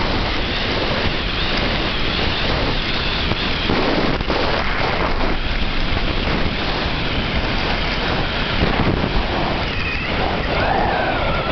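Loud, steady wind buffeting a handheld compact camera's microphone on a downhill ski run, mixed with the hiss of skis sliding on packed snow.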